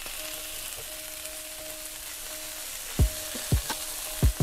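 Browned oxtail with chopped onion, garlic and ginger sizzling in a nonstick frying pan, with a steady hiss, while a spatula stirs it and knocks against the pan about four times in the last second and a half.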